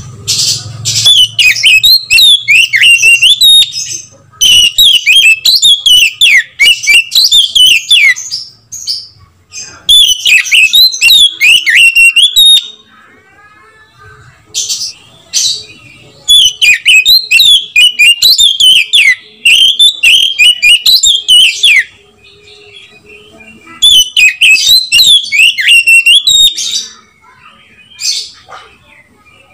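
Oriental magpie-robin singing loudly: rich, varied whistled phrases that sweep up and down. The song comes in bouts of about three to five seconds, with short pauses between them, plus a couple of brief snatches near the end.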